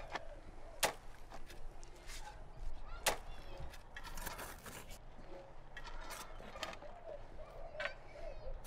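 Spades digging into wood-chip mulch and soil: several sharp strikes a second or two apart, with faint bird chirps behind.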